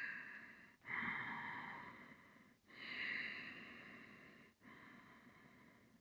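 A person breathing slowly through the nose close to a headset microphone. The breaths are airy and come about every two seconds; each starts sharply and fades away.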